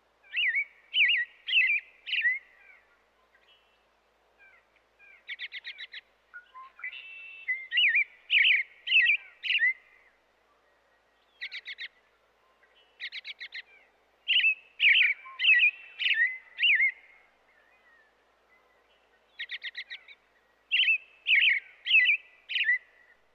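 American goldfinch chirping: groups of quick, high slurred notes and short rapid trills, each group lasting a couple of seconds, with short pauses between.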